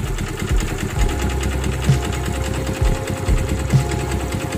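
Yamaha underbone motorcycle's single-cylinder four-stroke engine idling with a fast, steady ticking beat. The carburetted engine stays running at idle but dies when the throttle is opened.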